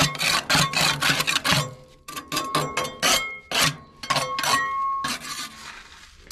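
Metal spatula scraping built-up soot off the steel inner walls of a Mimsan solid-fuel boiler, in quick repeated strokes, about three a second, with a faint metallic squeal. The scraping stops about five to six seconds in.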